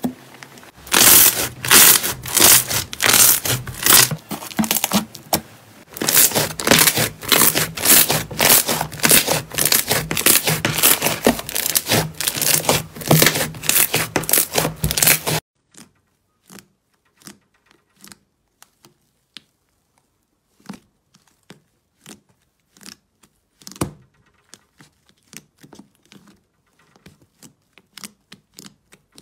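Slime being pressed and kneaded by hand: loud, dense crackling and popping of air pockets bursting in the slime. About fifteen seconds in it cuts off suddenly to much quieter, sparse clicks and squishes as a thick blue slime in a tub is poked.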